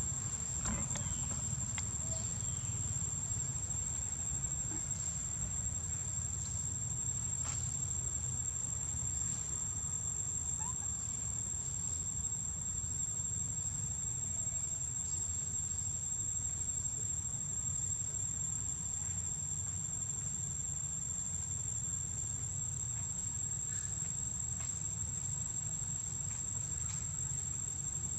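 Steady high-pitched insect chorus, a continuous shrill drone of crickets or cicadas, over a low steady rumble.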